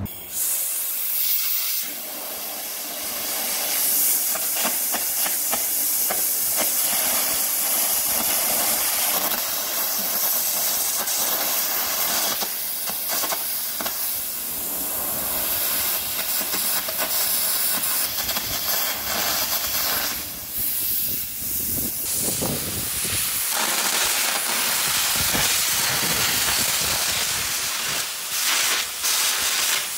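Air arc (carbon arc) gouging on the steel edge of an excavator bucket: a loud, steady hiss and crackle of the compressed-air jet blowing molten steel out of the arc as the bolts and welds are cut away. It breaks off briefly about 21 seconds in, then resumes.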